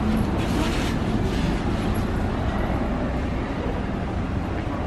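Steady low rumbling background noise with a light hiss, with no one speaking.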